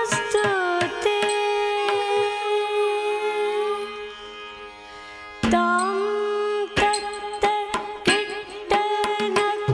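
Carnatic music: a held melodic line with sliding pitches over a steady drone. After a brief quieter stretch it returns loudly about halfway through, with drum strokes in a steady rhythm.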